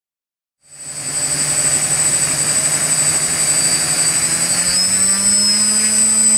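DJI Flamewheel F450 quadcopter's brushless motors spinning its propellers at low throttle on the ground. It is a steady buzzing hum with a high whine over it, coming in about a second in and rising slightly in pitch about five seconds in.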